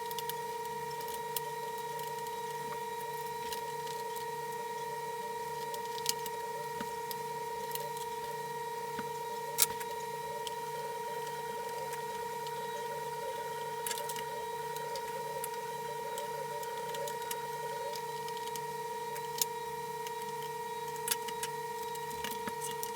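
Small clicks and taps of fan parts being handled and fitted back together, over a steady electrical hum.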